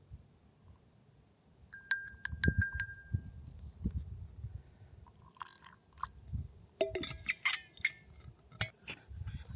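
Small utensils and a cup clinking while matcha is made: a quick run of about six light clinks with a ringing tone a couple of seconds in, then scattered clinks and rattling over a low rumble.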